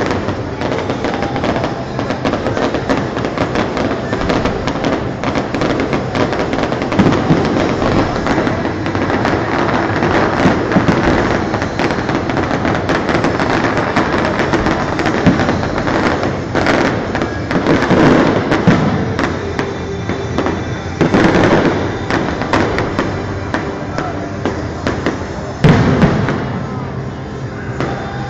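Fireworks display: aerial shells bursting with booms over a dense crackle of stars. A few louder bangs stand out in the second half, the loudest near the end.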